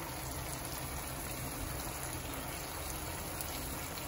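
Eggs frying in a nonstick pan on a bed of cooked potato, onion and tomato: a steady sizzle and bubble.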